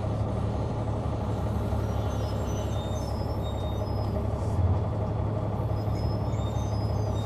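Caterpillar C-9 ACERT diesel engine of a 2004 Neoplan AN459 articulated transit bus running with a steady low drone, heard from the rear seats near the engine. A louder bump comes about four and a half seconds in.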